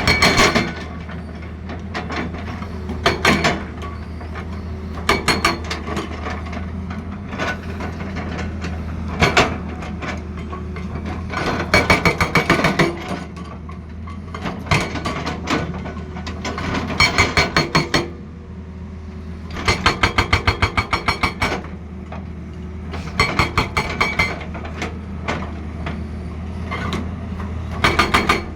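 Excavator-mounted hydraulic breaker hammering in short bursts of rapid blows, about eight a second, each burst lasting half a second to a second and a half. Between and under the bursts the excavator's diesel engine runs with a steady low drone.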